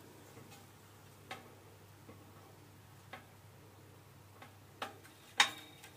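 Roxy Priya quartz rod room heater, freshly switched on, giving a faint steady electrical hum while its metal guard and reflector tick irregularly as they warm and expand. About six light ticks, the loudest near the end.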